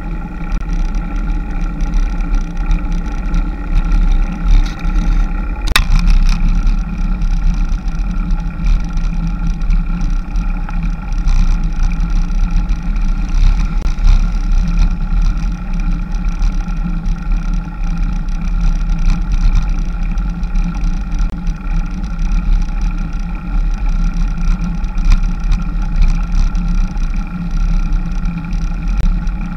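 Wind buffeting the microphone of a camera on a moving road bike: a heavy, steady rumble under a constant droning hum, with one sharp click about six seconds in.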